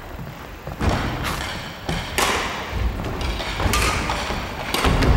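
Badminton rally: several sharp hits of rackets on the shuttlecock, a second or so apart, mixed with players' footfalls on the wooden gym floor, echoing in the large hall.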